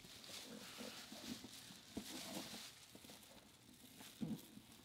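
Faint rustling and a few soft knocks from items being handled, with a slightly louder knock about four seconds in.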